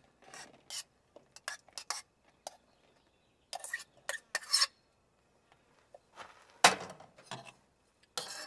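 A spoon scraping and tapping against a small camp cook pot as canned corn is spooned out onto a plate, in short separate clinks with pauses between them. A louder clank about two-thirds of the way through as the pot is set back down on the stove.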